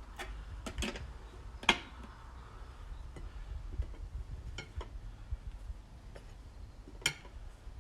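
Tyre levers clinking and knocking against a motorcycle wheel rim as a tyre is worked off by hand: a few separate sharp metallic clicks, the loudest about two seconds in and another strong one near the end.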